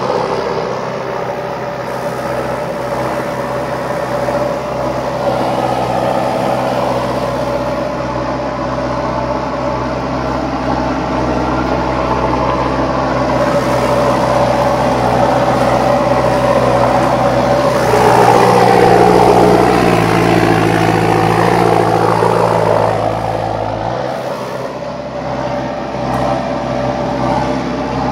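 Tractor engine running steadily under way, heard from inside the cab. Its note shifts for several seconds about two-thirds of the way through, then settles back.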